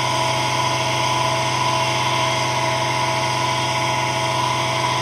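Electric motor running steadily, spinning a wooden disc set with magnets inside a copper tube coil: an even hum with a steady whine above it.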